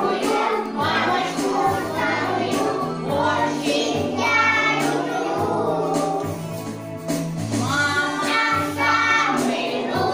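A group of young children singing a song together over a recorded backing track, with a steady bass line under the voices.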